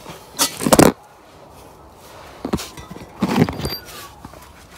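Metal hand tools and bolts clattering and rattling in two bursts, about half a second in and again around three seconds in, the second ending with a brief metallic ring.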